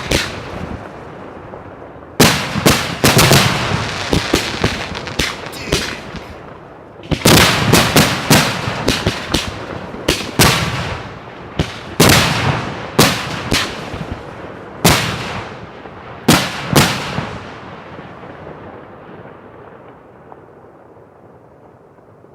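Aerial firework shells bursting in quick volleys of loud, sharp bangs, each echoing away. The bangs stop about 17 seconds in, and the echo fades out over the last few seconds.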